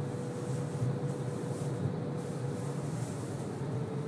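Tram running along the street, heard from on board: a steady rumble with a faint motor whine that dips slightly in pitch near the end.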